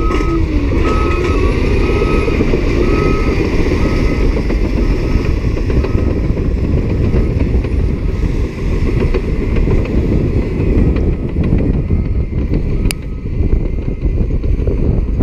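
Cat D7E diesel-electric crawler dozer working under load, its engine and steel tracks making a loud, steady clatter as it pushes a blade of earth. A reversing alarm beeps about once a second through most of it and stops near the end.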